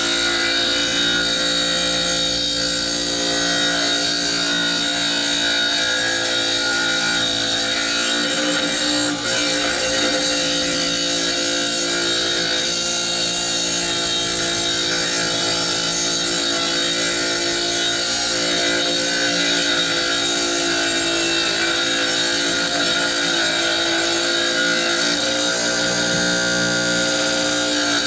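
Small benchtop tile saw running steadily as its blade rips a 1x3 wood strip lengthwise: an even motor whine mixed with the sound of the blade cutting through the wood.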